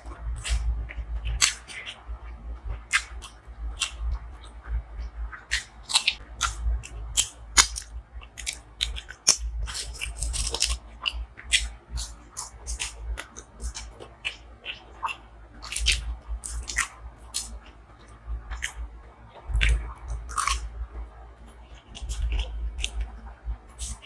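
A person chewing and biting food close to the microphone, with a quick, irregular run of sharp mouth clicks and smacks.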